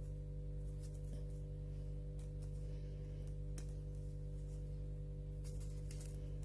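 A steady low hum with a few faint, scattered clicks of hands handling the plastic parts of a Dyson V7 cordless vacuum while picking hair out of it.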